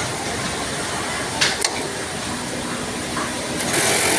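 Steady mechanical hum of an industrial sewing machine floor, with two sharp clicks about a second and a half in. Near the end a louder, higher whir sets in as the machine starts running again.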